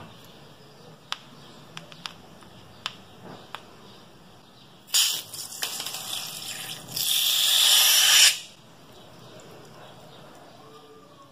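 A few small clicks, then two loud bursts of hissing spray about five and seven seconds in, as the liquid inside a cut-open rubber balloon gushes out into the dish.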